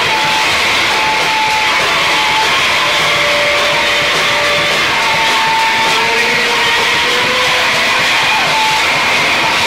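Live Japanese harsh noise music: a constant, dense wall of distorted noise. Thin held feedback tones whistle in and out over it.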